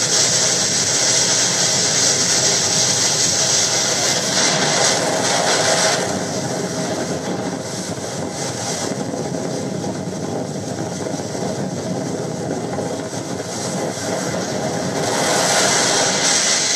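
A boat's engine running under a steady rush of wind and water. The hiss eases about six seconds in and comes back near the end.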